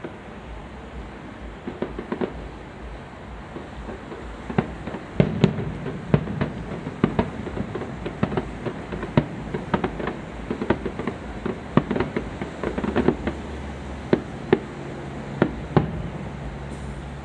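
Aerial firework shells bursting at a distance: dozens of sharp, irregular bangs, thickest in the middle and thinning out near the end, over a steady low hum.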